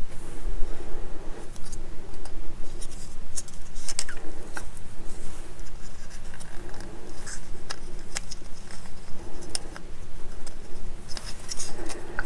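Small plastic model-kit parts clicking and tapping against each other and the work surface as they are handled and test-fitted, in scattered sharp ticks.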